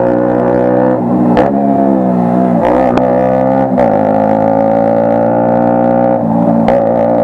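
KTM RC 125 single-cylinder engine running loud through an aftermarket Akrapovic exhaust with the catalytic converter removed, a deep steady drone. The pitch dips and climbs back a couple of times in the first half and once more near the end.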